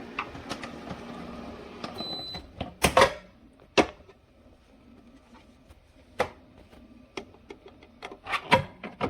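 Compressor ice cream maker humming in its keep-cool mode; it gives a short high beep and the hum stops about two seconds in. Sharp plastic knocks and clatters follow as the lid and bowl are handled.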